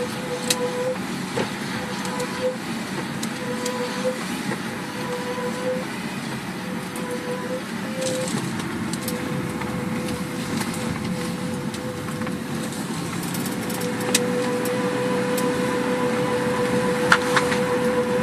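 Mk4 Volkswagen Jetta driving, with cabin road noise and a steady humming tone over it. The hum drops out briefly several times early on, then holds steady. The owner notes that the hum stops under braking and has not been cured by a new brake caliper.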